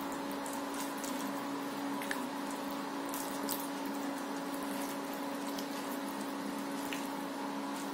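A steady hum with an even hiss, with a few faint clicks and squelches as a metal spoon packs minced-meat filling into a raw chicken-leg skin over a bowl.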